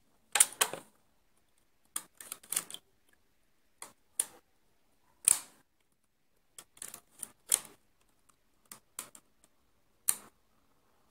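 Irregular sharp clicks of needles being pushed along the metal needle bed of a Passap double-bed knitting machine with a white plastic hand tool. Some clicks come singly and some in quick clusters of two or three.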